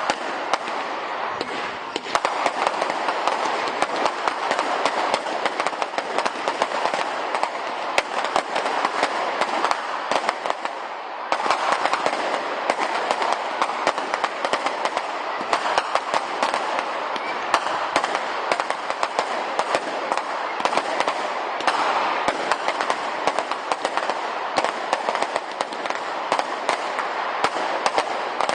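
Fireworks crackling densely and continuously, a rapid mass of small pops with louder cracks scattered through. The crackle dips briefly partway through, then comes back stronger.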